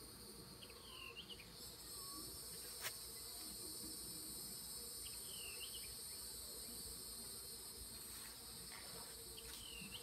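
Honeybees humming around an open top-bar hive while a comb is lifted out, over a steady high insect drone. A short chirp repeats three times, and a single sharp click comes about three seconds in.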